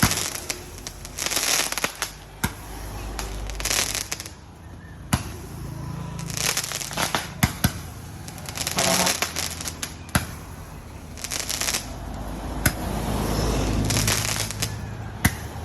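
Fireworks going off: sharp bangs at irregular intervals mixed with bursts of crackling and low booming rumbles.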